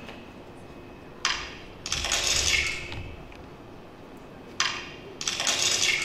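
A repeating sound effect over the hall speakers: a short sharp crack followed by a longer bright rattle. The pair sounds twice, about three seconds apart.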